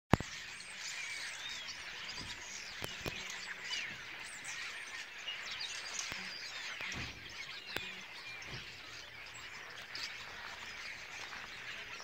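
Many small birds chirping together in a tree: a dense, unbroken chorus of short, high overlapping chirps. A sharp click sounds right at the start.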